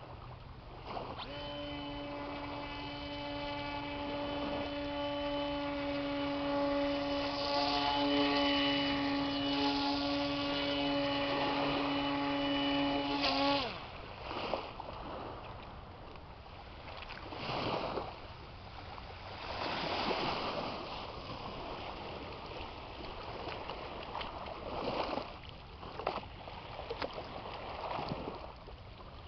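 Small electric motor and propeller of a hand-made RC airboat running with a steady whine, ending suddenly about halfway through. After that come irregular swells of washing water.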